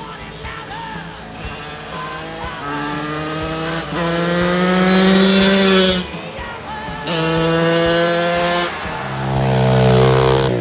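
Small engines revving hard in several bursts of a second or two each. The pitch holds steady or rises slightly within each burst, and each breaks off abruptly.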